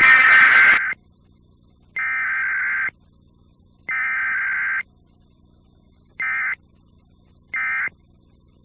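Emergency Alert System (EAS) SAME digital header tones: three harsh electronic data bursts of about a second each, roughly two seconds apart. Two shorter bursts follow, the end-of-message code that closes the alert.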